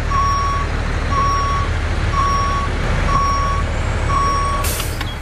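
Truck reversing alarm beeping five times, about once a second, over the steady low rumble of a running engine.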